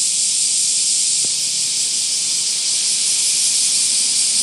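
Chorus of Japanese cicadas in a tree, singing in a loud, steady, high-pitched hiss with no breaks.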